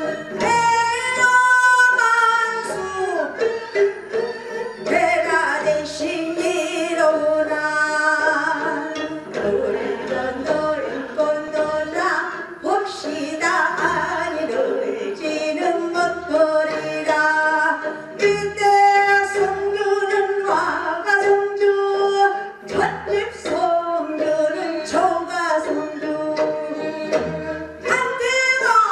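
A pansori-trained female singer performing a Korean folk song into a microphone, her voice sliding and wavering through ornamented phrases over an accompaniment with a steady low beat.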